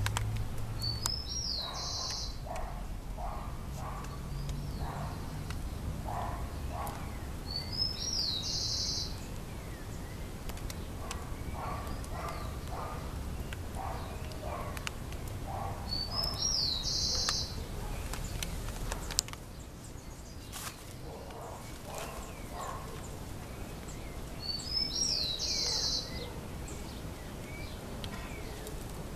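A bird's short, high chirp, repeated four times about eight seconds apart, over a steady low rumble and scattered soft knocks.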